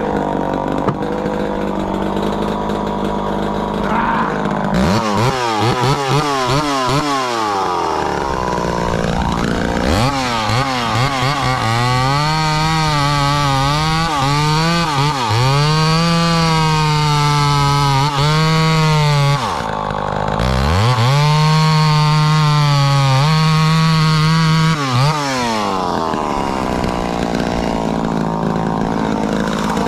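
Two-stroke chainsaw idling, then revved up and held at high speed in two long spells. The pitch sags and recovers, with a short drop between the spells about two-thirds of the way through, before the saw settles back to idle near the end.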